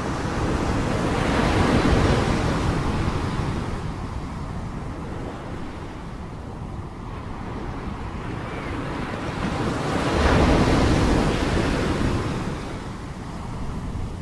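Sea waves breaking and washing on the shore, the surf swelling up and ebbing twice, peaking about two seconds in and again about ten seconds in.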